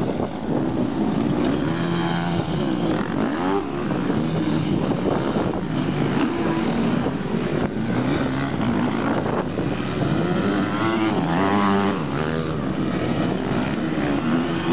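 Motocross dirt bike engines revving as the riders pass, the pitch rising and falling again and again as they accelerate and ease off.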